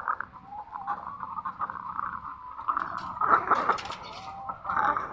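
A flock of laying hens with chronic respiratory disease (CRD) calling continuously, with the rattling, snoring breath noise ('ngorok') that is the typical sign of the disease. A louder, sharper burst comes about three and a half seconds in.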